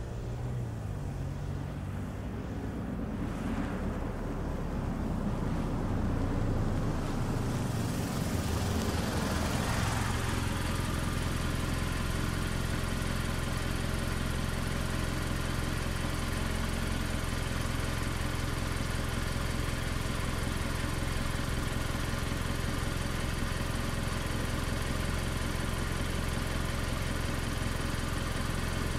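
Mazda CX-5 small SUV driving in from the side, growing louder and pulling up about ten seconds in, then its engine idling steadily.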